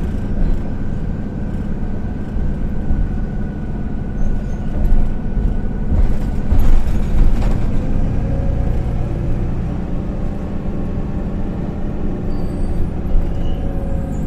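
Interior noise of a moving MAN Lion's City A20 NL city bus: its rear-mounted six-cylinder diesel engine and drivetrain running steadily under way, with a thin whine through the first half. The body and fittings rattle, loudest around seven seconds in.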